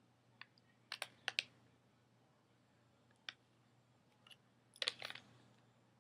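Scattered sharp clicks and taps from a small packet of energy gummies being handled, with the loudest cluster about five seconds in.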